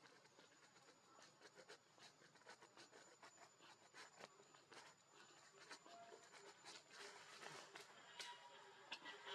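Near silence: faint outdoor ambience with scattered soft ticks and rustles and a faint steady high tone.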